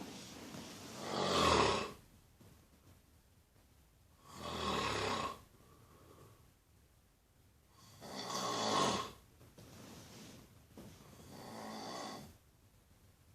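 Someone sleeping and snoring: four drawn-out snores about three and a half seconds apart, with quiet breaths between them. The last snore is softer.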